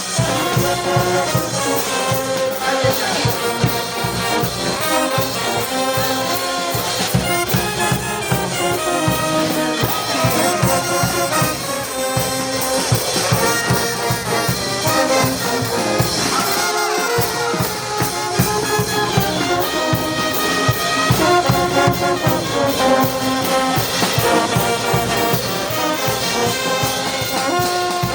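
Brass band playing a melody on trumpets and trombones, with saxophones, over a steady drum beat.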